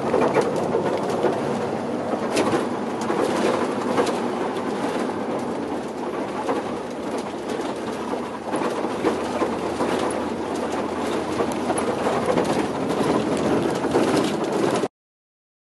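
Vehicle driving, heard from inside the cabin: a steady engine and road drone with small rattles, which cuts off abruptly near the end.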